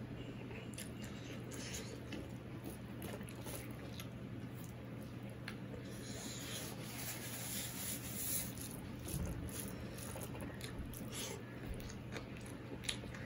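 Fingers mixing rice and curry on a steel plate: soft squishing with small scattered clicks, over a steady low hum. A stretch of hiss comes in about six seconds in and fades two seconds later.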